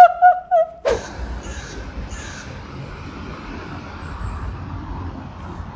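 A woman's brief high-pitched laugh in three short pulses, then, about a second in, a sudden switch to a steady hiss of background noise.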